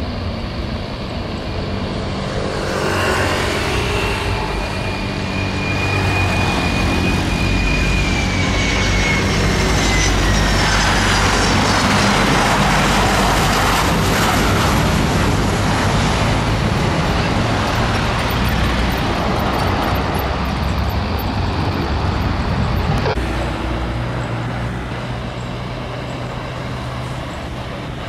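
Boeing 737-500 jet airliner passing low on final approach and landing: the jet engine noise builds, a high whine glides down in pitch as it passes, and the noise is loudest around the middle before easing off. A steady low hum runs underneath, and a sharp click sounds about two-thirds of the way through.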